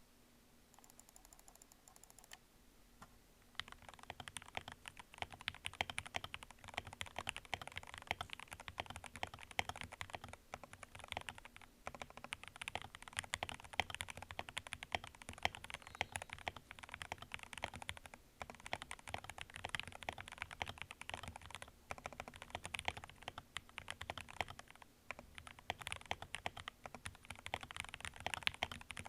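RK G68 mechanical keyboard with lubed Gateron Milky Yellow linear switches, PBT keycaps and a foam-filled case, being typed on fast and continuously, at about 100 words per minute. The typing starts about three and a half seconds in, after a quiet start.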